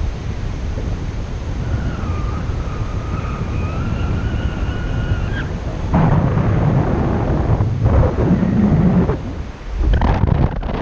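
Wind rushing and buffeting over the camera microphone in paraglider flight, growing louder and gustier about six seconds in. A faint, thin wavering tone sounds for a few seconds in the middle.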